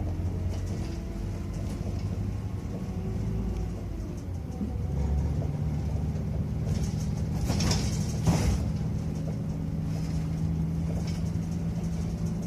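Bus engine running with steady road rumble, heard from on board. About seven seconds in comes a brief burst of hissing noise, ending with a sharp knock.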